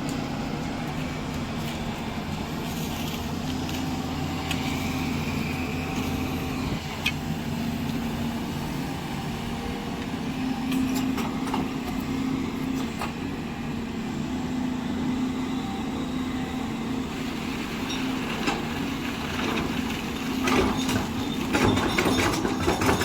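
Diesel engine of heavy construction machinery running steadily at one speed, with scattered metallic knocks and clanks that grow busier near the end.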